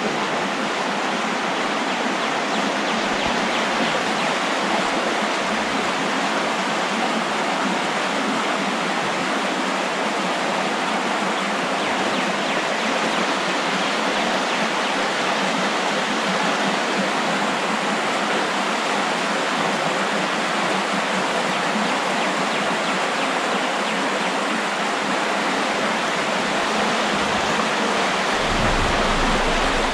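Steady, even rush of a creek's current running over a rocky riffle.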